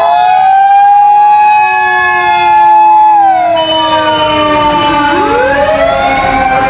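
Fire engine's mechanical motor siren winding up to a steady wail, winding down about three seconds in, then winding up again about five seconds in. Other steady siren tones sound alongside.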